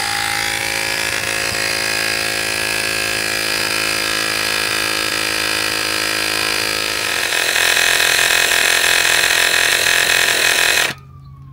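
AirMoto cordless rechargeable tire inflator running, its small electric compressor pumping air into a tire with a steady mechanical drone. It gets a little louder and brighter partway through, then cuts off abruptly near the end, followed by a faint falling whine.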